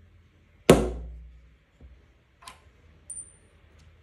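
A single hammer blow on a steel letter punch set in a stamping guide, stamping a letter into the wood, with a low ring that fades over about a second. A few light clicks follow as the punch and guide are handled, and a brief high thin tone sounds about three seconds in.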